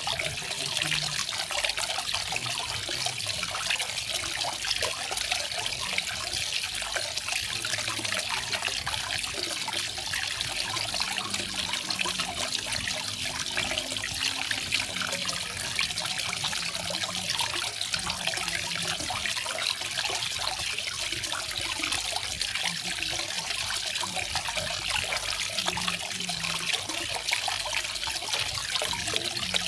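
Small garden waterfall, water splashing and trickling steadily.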